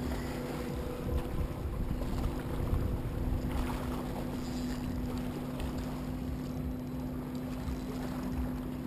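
Steady drone of a boat engine across the water, with low wind rumble on the microphone.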